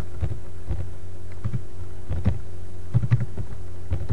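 Keystrokes on a computer keyboard: irregular single clicks, about ten in all, with a louder pair about three seconds in, over a steady low electrical hum.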